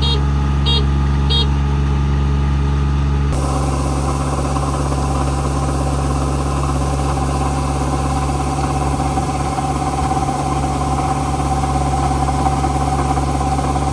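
Machinery running with a steady, loud hum. A repeated electronic beep sounds during the first second or so. About three seconds in, the sound changes abruptly to a noisier running hum with a steady whine.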